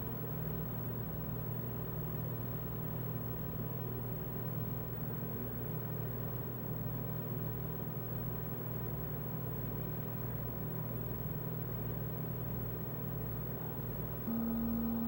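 A steady low mechanical hum with a slow, even pulsing underneath, about one and a half pulses a second; near the end it steps up a little louder and a higher steady tone joins it.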